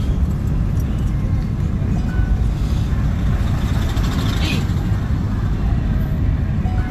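Steady low rumble of a car heard from inside the cabin, with a couple of faint short tones about two seconds in and near the end.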